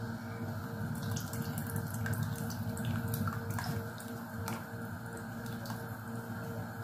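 Milk poured in a thin stream from a cup into a pot of hot soup, splashing and trickling with many small clicks for a few seconds.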